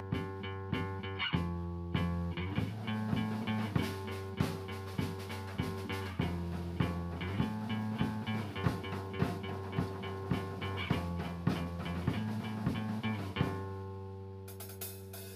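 Background music: rock or blues with guitar, bass and drums, playing with a steady beat.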